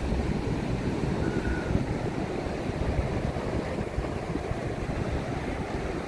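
Ocean surf washing steadily onto a sandy beach, with wind noise on the microphone.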